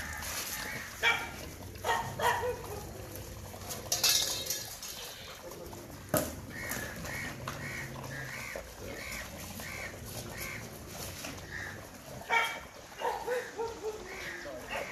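Pack of street dogs crowding round feeding bowls: dogs yelping and whining, with sharp knocks and clatter of bowls, and a run of short repeated calls about two a second in the middle.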